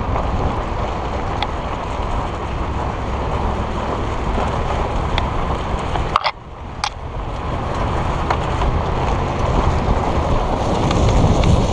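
A vehicle driving on a rocky dirt track, heard as a steady rumble of wind buffeting a side-mounted camera and tyres on gravel. About six seconds in, dry brush scrapes past the camera with a couple of sharp clicks, and the rumble briefly drops away.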